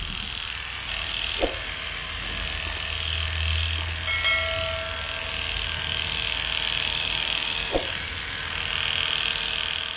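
Electric pet clippers running with a steady buzz as the blade shears through a dog's dense, matted coat.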